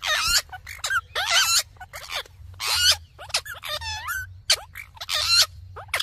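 Indian ringneck parakeets squawking and chattering: a quick run of harsh, high-pitched calls, each bending up and down in pitch.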